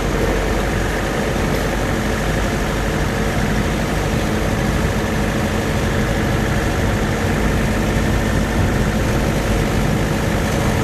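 Steady engine and road noise of a moving vehicle, heard loudly from on board, with a constant low engine hum under a hiss of wind and tyres.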